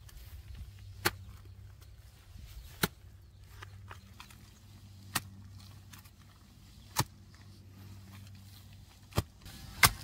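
Wooden-handled hoe chopping into soil, six sharp strikes about every two seconds, the last two close together, over a faint steady low hum.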